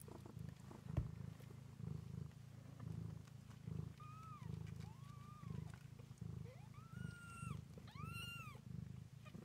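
Nursing mother cat and her two-week-old kittens purring in a steady rhythmic pulse, with a short knock about a second in. About halfway through come five short, high, arching kitten mews.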